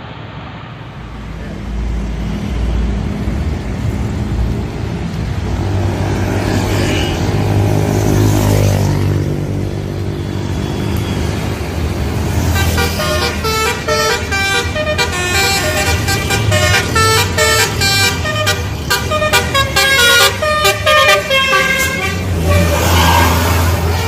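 A coach engine running and changing pitch as the bus moves off, then a Basuri telolet musical horn playing a rapid tune of many short stepped notes for about ten seconds, after which the engine is heard again.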